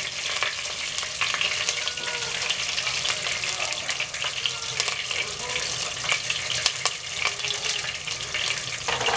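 Soaked vadi (lentil dumplings) and cumin seeds frying in hot oil in a pot, with steady sizzling and many small sharp crackles.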